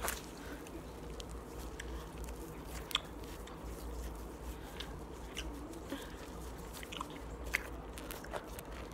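Slime being squeezed and worked by hand, giving scattered small sticky clicks and pops.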